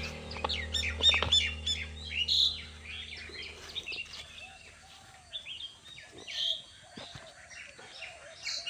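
Small birds chirping and twittering in many short calls that glide up and down, with a low sustained music chord fading out during the first few seconds.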